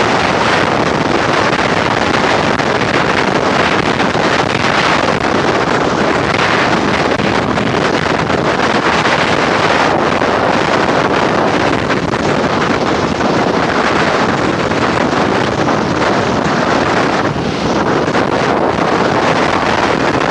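Strong hurricane wind blasting across the camcorder microphone, a loud, steady rushing roar that drowns out all else.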